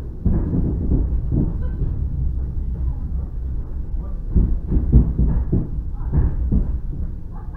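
Electric commuter train running along the track, heard from inside the carriage: a steady low rumble, with a run of irregular knocks of the wheels over rail joints about four to six and a half seconds in.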